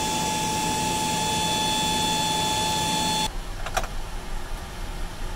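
Steady mechanical whine of a Boeing 777-200ER's systems under the wing during flap extension, several constant tones over a hum. It cuts off abruptly a little over three seconds in. A single sharp click follows, as the flap lever is moved in the cockpit.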